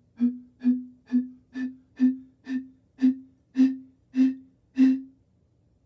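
Glass bottle, partly filled with water and holding carbon dioxide from dissolved Alka-Seltzer, blown into in about ten short puffs, roughly two a second, each sounding a breathy low tone: the bottle's Helmholtz resonance. The carbon dioxide's lower sound speed lowers the pitch at first, and it comes back up as the blowing flushes air back into the bottle.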